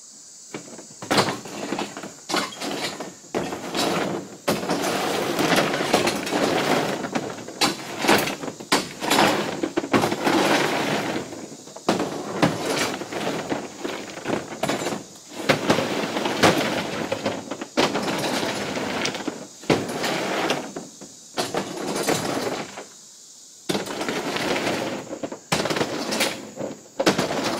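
Rocks being pulled and tossed out of a pickup truck's bed, clattering and scraping against the metal bed and against each other in bursts of knocks with short pauses.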